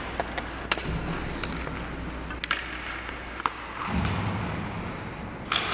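Ice hockey play in an echoing arena: a steady scrape of skates on the ice with several sharp clacks of sticks and pucks, the loudest one near the end.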